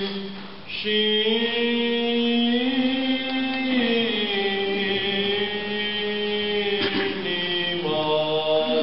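A priest's solo voice chanting the Gospel reading in Romanian in Orthodox recitative style, with long held notes that slide slowly up and down in pitch and a short breath pause just after the start.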